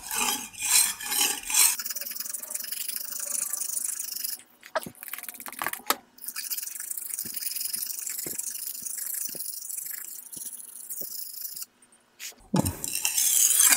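Steel knife blade scraped along a brick in sharpening strokes: quick strokes at the start and again near the end, with long, slow hissing strokes between, broken by a few short pauses.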